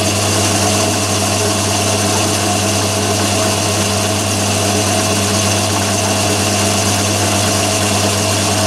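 Myford ML7 lathe running steadily at 500 rpm with a boring head and insert boring bar taking a boring cut in a metal block: a constant, even machine hum.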